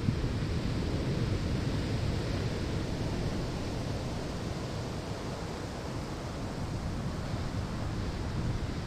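Ocean waves breaking on a sandy shore: a steady wash of surf that swells about a second in, eases off in the middle and builds again near the end.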